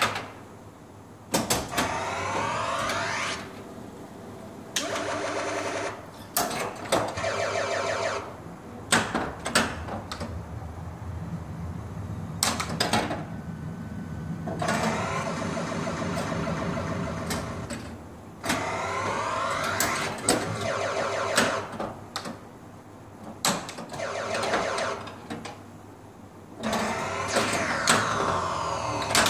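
Gottlieb Volcano pinball machine running: sharp clicks and knocks from its playfield mechanisms come at irregular intervals, and several times electronic sound effects of sweeping tones play for two or three seconds each.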